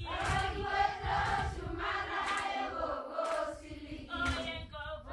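A group of voices singing together in a choir-like chant, with long held and gliding notes.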